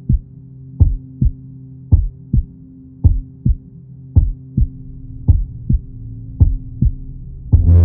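Heartbeat, a slow steady lub-dub a little under once a second, over a low steady drone. Near the end a louder swell comes in.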